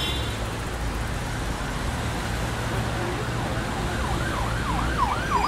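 Electric hair clippers buzzing steadily, with a siren wailing in over them about two-thirds of the way through, its pitch sweeping quickly up and down.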